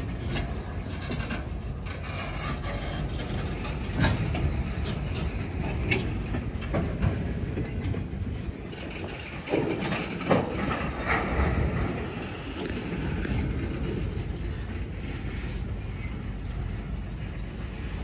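Freight cars rolling past close by: a bulkhead flatcar, tank cars and covered hoppers. Their wheels rumble steadily over the rails, with several sharp clanks, the loudest about ten seconds in.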